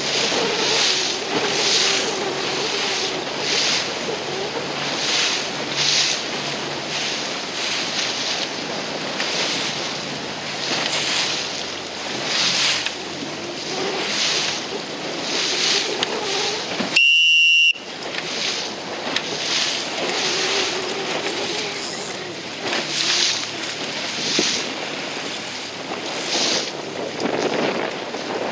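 Wind buffeting the microphone and sea water rushing and slapping past a moving boat in choppy water, surging every second or so. About two-thirds of the way through, one sharp whistle blast sounds for under a second: the coach's signal for the dinghy crew to tack.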